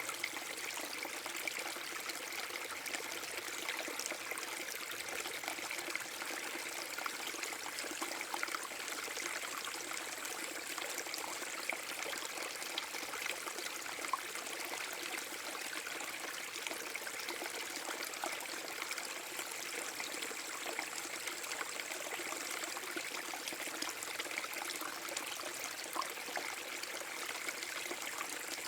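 A small forest brook waterfall: water splashing and trickling over rocks in a steady, unbroken rush, with many small droplet splashes.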